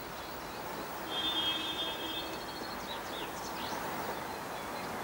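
Birds singing over a steady rushing background: a high, even trill about a second in, then a few quick chirps.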